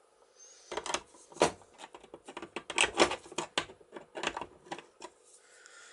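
A string of irregular sharp metallic clicks and taps, starting about a second in, as a screwdriver is worked in the square follower hub of a sailboat cabin lock's open mechanism. The lock's parts are jammed.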